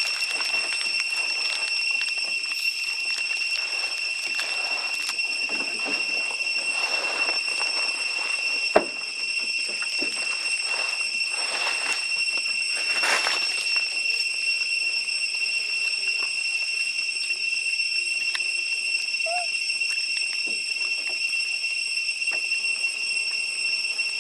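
Cicadas droning in the forest canopy: one steady high-pitched whine with its overtones, over intermittent rustling, with a single sharp click about nine seconds in.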